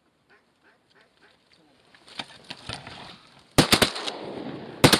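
Faint waterfowl calls repeating over the first couple of seconds, then shotguns from duck hunters firing in quick succession: a rapid volley of about three shots a little past three and a half seconds in, and two more just before the end.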